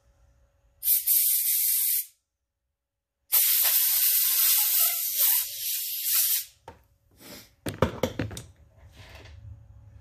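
Compressed-air blow gun hissing in two blasts, one about a second long and the second about three seconds, as it blows out a small-engine carburetor's jets and passages. A few clicks and knocks of tools being handled and set down follow near the end.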